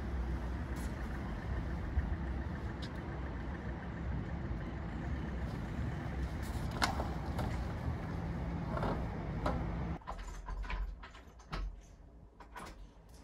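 Outdoor street ambience at night: a steady low rumble of traffic, with a few sharp clicks. About ten seconds in it cuts off abruptly to a much quieter room, where a handful of light clicks and knocks sound.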